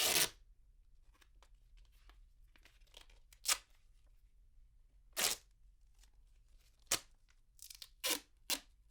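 Duct tape torn off the roll in a series of short, sharp rips, heard from a medium distance. The first rip, right at the start, is the longest and loudest; several brief ones follow at irregular gaps of about a second, bunching up near the end.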